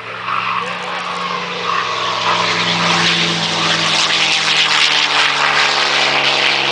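An aircraft flying close past with a steady engine drone and a rushing noise, growing louder over the first few seconds as it approaches, then holding.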